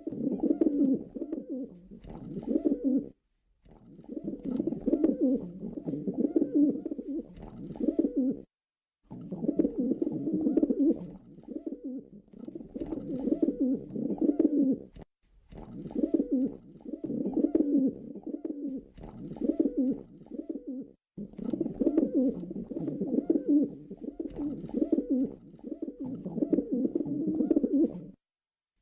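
Pigeons cooing in low, repeated phrases, in stretches of several seconds broken by short, abrupt silences.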